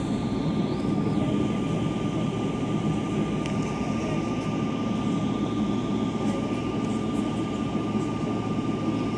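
Boeing 777-200ER's jet engines heard inside the passenger cabin while the airliner taxis: a steady low rumble with a constant thin whine above it.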